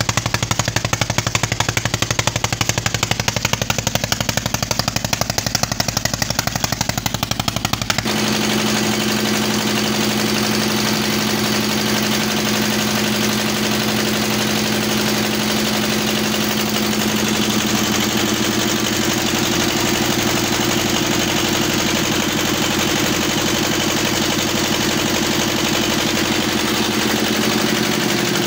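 Stationary diesel engine driving a tubewell water pump, running steadily with rapid, even exhaust beats. About eight seconds in, the sound shifts to a steadier run with a steady hum.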